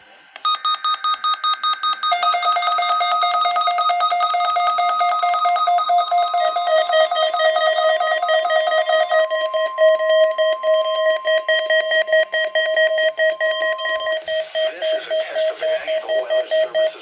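Electronic emergency-alert test tones: a rapidly pulsing, multi-pitched tone signal that changes pitch in steps a few times. A steady higher tone joins it for about five seconds in the middle.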